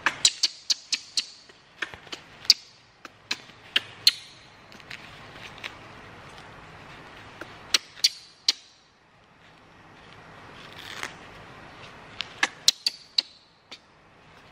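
Handling noises as a baby monkey is rubbed dry in a towel over a wooden table: an irregular run of sharp clicks and taps, bunched in quick clusters at the start, around two to four seconds in, around eight seconds and again near the end, with a brief swell of cloth rubbing in between.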